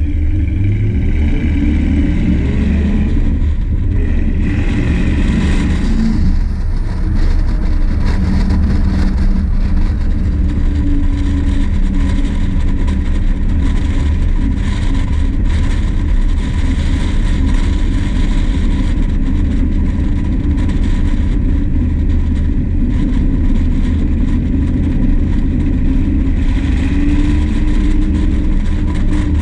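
1964 Plymouth Fury wagon's 383 V8 engine running under way, a steady low rumble. Its pitch rises and falls with the throttle in the first few seconds and climbs again near the end.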